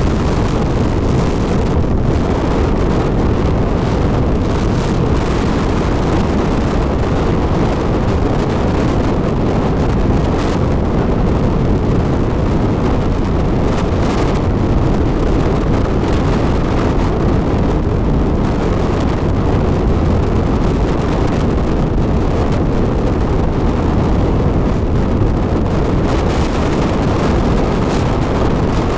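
Steady wind buffeting on the microphone of a motorcycle at riding speed, a constant low roar with the machine's running and road noise blended in.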